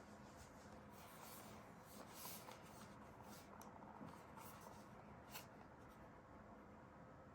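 Faint rustling and scratching of packaging being handled, with a small sharp click about five seconds in.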